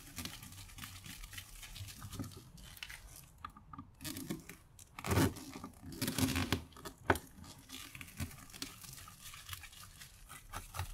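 Screws being backed out of a brass gauge by hand with a screwdriver: scattered scraping, creaking and small metallic clicks, with a few louder knocks and scrapes about halfway through.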